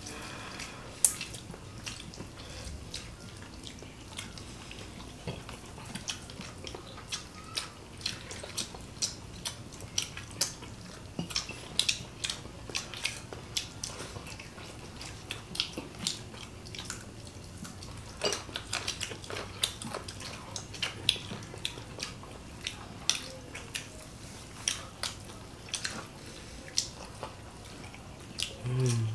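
People eating with their hands at a table: frequent small, irregular clinks and taps of fingers and a serving spoon on ceramic plates, with chewing. A brief low vocal hum near the end.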